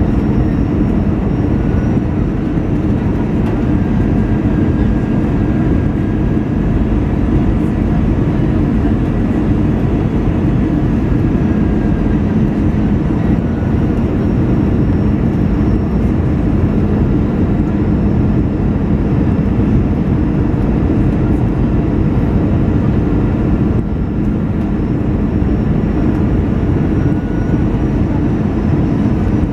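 Airbus A320 cabin noise on approach, heard from a window seat beside the wing engine: a steady rush of jet engines and airflow with a low hum and a faint high whine that drifts slowly in pitch.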